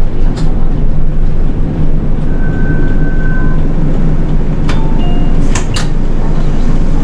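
City bus running, heard from the front of the cabin: a steady low engine drone with road noise. A short high tone sounds about two and a half seconds in, and a few sharp clicks or knocks come near the five- to six-second mark.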